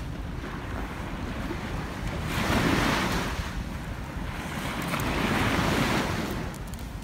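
Ocean surf washing up the beach in two slow swells, a couple of seconds in and again about five seconds in, over a steady low rumble of wind on the microphone.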